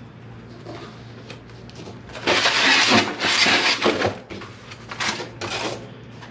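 Packaging rustling and scraping as hands dig into the Pit Barrel Cooker's barrel to pull out the packed parts. It comes as one long stretch of loud rustling a couple of seconds in, then several shorter rustles.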